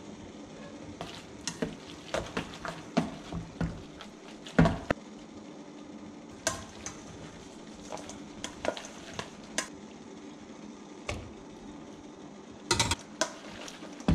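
Metal tongs clinking and scraping against a stainless steel mixing bowl as spaghetti is tossed with egg and cheese. The clicks come irregularly, several a second at times, with louder knocks about halfway through and near the end, over a steady low hum.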